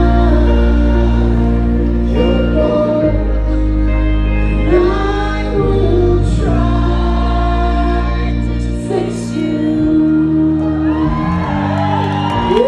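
Live band playing, with electric guitars, bass and a singing voice over steady chords. The low bass drops out for a couple of seconds about nine seconds in.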